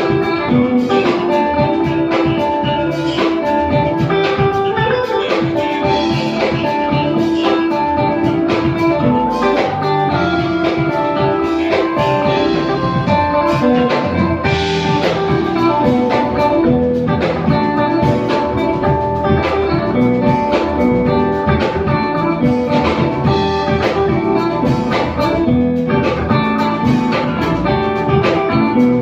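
Live band playing jazz, with a guitar to the fore over a drum kit, in one continuous passage.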